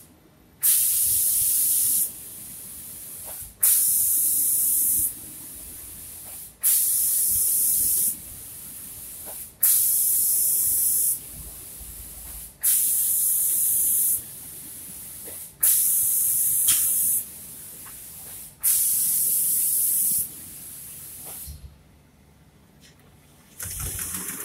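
Automatic spray-painting machine's gun spraying the finish coat: loud hissing bursts of about a second and a half, one every three seconds, each starting with a click, with a quieter hiss between them as the gun sweeps across the panel. After about twenty seconds the bursts stop, and one short burst comes near the end.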